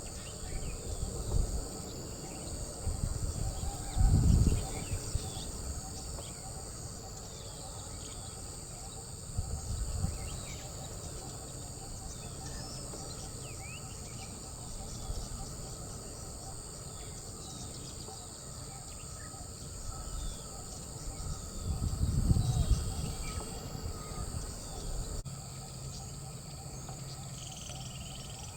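Outdoor ambience: a steady high-pitched drone of insects, with many short bird chirps and calls scattered through it. A low rumble about four seconds in and another, longer one around twenty-two seconds are the loudest sounds.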